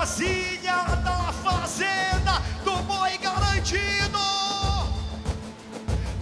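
Boi-bumbá toada played live: a singer's long held notes over deep, booming drum beats about once a second.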